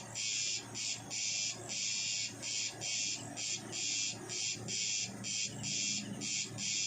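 A night-time insect chorus in forest: a high, hissing buzz that comes in bursts of uneven length, about two a second, with fainter irregular low calls underneath.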